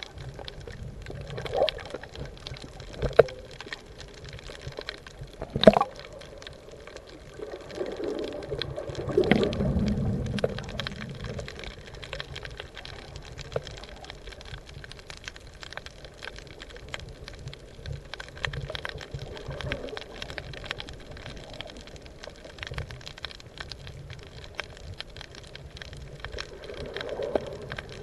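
Muffled underwater water noise heard through a submerged camera: sloshing and bubbling, with a few sharp knocks in the first six seconds and a louder surge of water about eight to ten seconds in.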